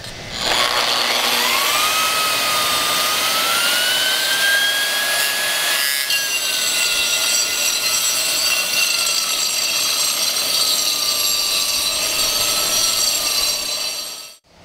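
AGP SM7 2,200-watt concrete grinder spinning up, its motor whine rising in pitch over the first few seconds as the speed is set. About six seconds in, its grinding disc is worked flat against a concrete slab, and the machine runs steadily with a slightly lower, wavering whine. The sound cuts off suddenly near the end.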